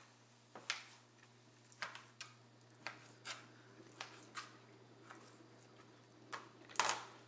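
A kitchen knife cutting through venison backstrap, its blade striking the plastic cutting board with about ten sharp taps at uneven intervals; the loudest tap comes near the end. A faint steady hum sits underneath.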